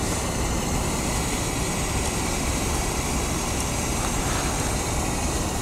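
Steady outdoor background noise: a low, fluctuating rumble with a hiss over it, even throughout.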